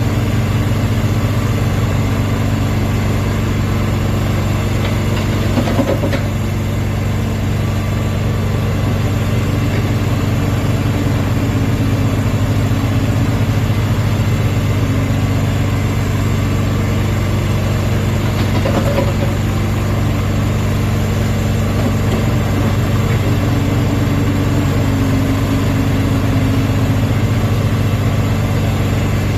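Kubota K008-3 mini excavator's diesel engine running steadily while it digs, with a couple of brief louder noises about a fifth and two thirds of the way through.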